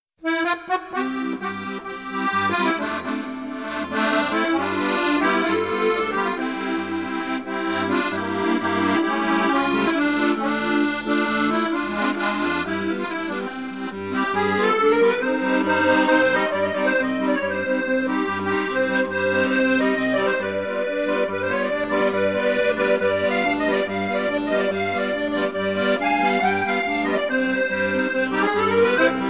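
Instrumental background music: a lilting melody over a steady, bouncing bass line, growing a little fuller and louder about halfway through.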